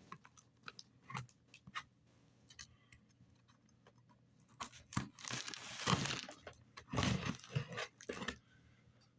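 Knife cutting open a mail package: scattered small clicks and scrapes, then two longer ripping strokes about five and seven seconds in.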